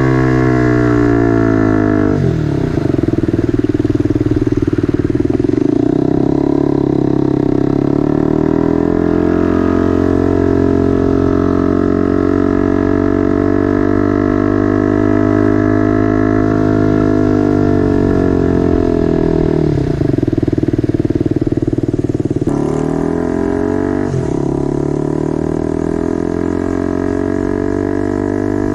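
Motorcycle engine running through a temporary exhaust while riding; the engine note falls about two seconds in, then holds fairly steady with slow rises and falls and brief dips in pitch about twenty and twenty-four seconds in.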